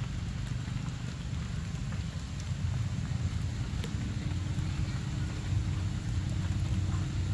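Steady outdoor background noise: a low rumble under a light hiss, with a few faint clicks. A faint steady hum joins about four seconds in.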